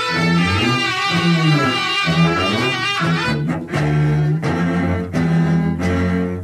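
Instrumental string passage from a 1970s rock recording: bowed cellos and violins playing gliding, sustained lines, which change about three seconds in to short, repeated bow strokes.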